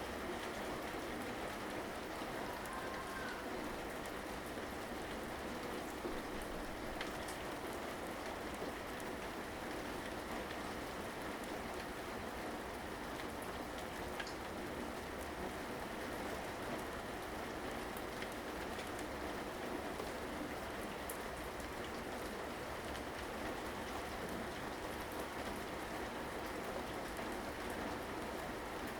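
Steady rain falling: an even hiss with scattered individual drops ticking on a surface.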